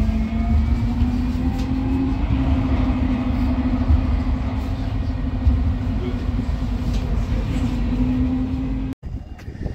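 Siemens-Düwag NGT6DD low-floor tram under way, heard from on board: a steady electric drive whine that rises slightly in pitch, over the rumble of wheels on rail. The sound cuts off suddenly near the end.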